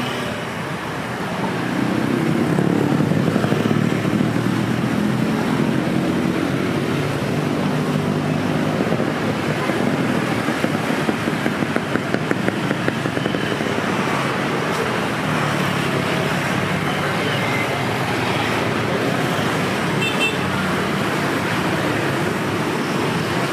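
Street traffic: motor vehicles, including motorbikes, running past close by, louder from about two seconds in.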